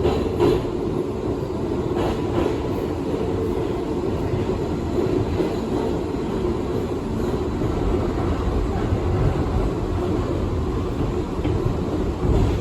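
An R62A subway car running along the track on the New York 1 line, heard from aboard: a steady rumble of wheels on rails, with a few sharp clacks in the first couple of seconds.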